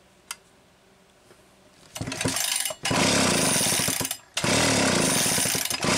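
Homelite 360 chainsaw cranked over on its recoil pull starter with the spark plug out, in about four quick pulls in a row starting about two seconds in; the engine spins over without running. The cranking is an ignition spark test.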